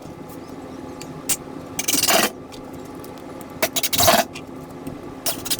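Two short scrapes, about two seconds apart, of wooden rack pieces being handled and lined up during assembly, with a light tap before the first.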